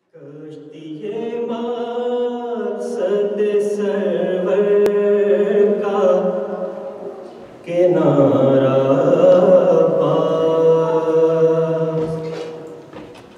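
A man's voice chanting an Urdu devotional poem without accompaniment, in two long melodic phrases with held notes. The second phrase begins strongly about halfway through and fades away near the end.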